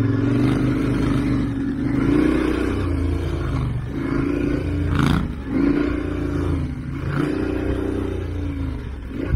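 Twin-cylinder adventure motorcycle engine being ridden along a dirt trail, heard close up from the bike itself. Its pitch rises and falls with the throttle and drops away briefly twice around the middle. A single sharp knock comes about five seconds in.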